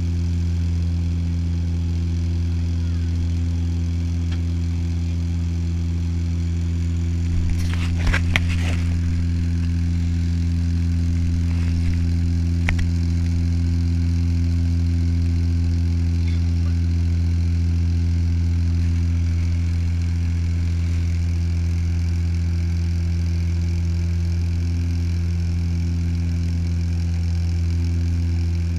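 Turboprop airliner's propellers and engines droning inside the cabin during the descent: a steady low hum with a few even overtones. A short cluster of clicks and rattles about eight seconds in, and one more click a few seconds later.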